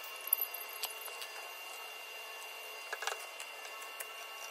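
A faint steady hum with a few light ticks, in a pause between welds on a steel car body panel.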